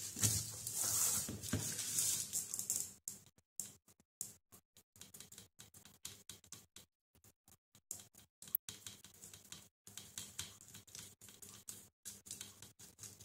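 Soft scratchy brushing and light taps of a small paintbrush working thinned acrylic paint into carved wood. It is louder for the first three seconds or so, then fainter and choppy.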